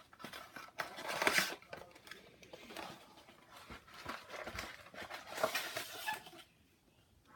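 Rustling and crinkling of a trading-card blaster box's packaging being handled and opened, in irregular bursts with a few light clicks, cutting to silence near the end.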